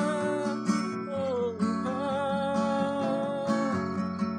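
A man sings wordless gibberish in long held notes over a strummed Takamine cutaway acoustic guitar, which keeps a steady strumming rhythm.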